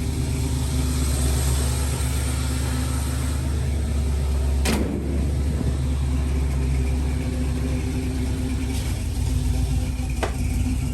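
Truck engine running at a steady idle with a deep rumble. A sharp clunk about four and a half seconds in, and another near the end.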